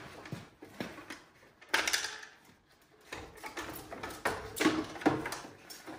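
Plastic corner lamp and headlight assembly being worked loose by hand from the front of a pickup truck: a run of sharp clunks and rattles, the loudest about two seconds in and a cluster of knocks around four to five seconds.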